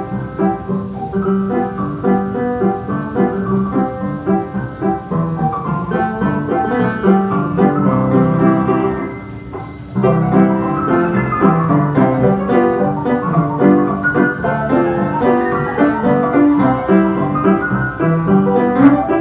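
Instrumental music led by piano or keyboard, with a short quieter passage a little past the middle before it picks up again.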